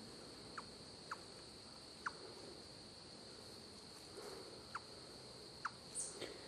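Eastern chipmunk giving its chip call, a chipmunk's alarm call: five short, sharp chirps at uneven intervals, over a steady high trill of insects.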